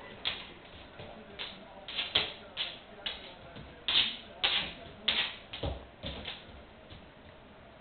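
A dog's claws and paws clicking and tapping on a laminate floor as it paws and stamps at a bee on the floor. The taps come quick and irregular, loudest in a cluster about four to five seconds in, and die away near the end.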